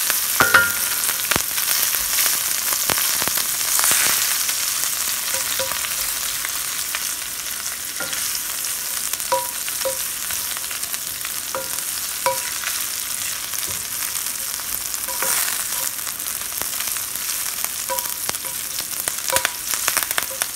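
Sage leaves, rosemary and thyme frying in hot oil: a steady sizzle, crisping the herbs. Light clicks and small clinks of a utensil stirring against the pan are scattered through it.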